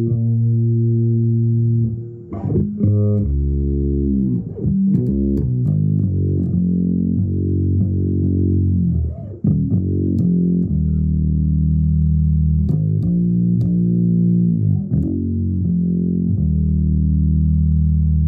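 Bass guitar playing an improvised solo line of low notes, mostly held for a second or more, with a few sliding pitch changes.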